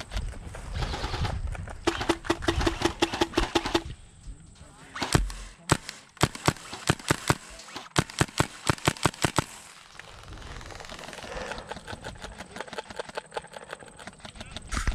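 Airsoft rifles firing strings of shots as sharp, rapid clicks: a fast run from about two to four seconds in, then a steady string of a few shots a second from about six to nine seconds in.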